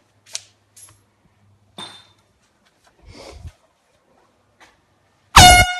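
A few seconds of quiet with faint clicks, then, near the end, an air horn suddenly blasts very loud: one piercing tone rich in overtones that slides up briefly and then holds.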